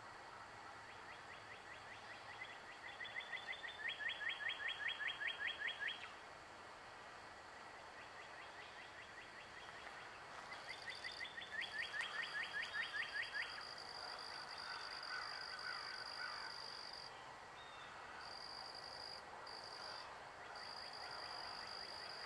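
A songbird sings two bursts of rapidly repeated downslurred whistled notes, about five a second, each burst growing louder. About halfway through, a steady high-pitched whine sets in and carries on with a few brief breaks, over faint outdoor background hiss.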